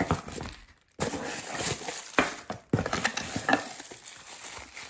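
A box being unpacked by hand: cardboard and plastic packaging rustling and crinkling, with a few sharp knocks and clicks as items are handled.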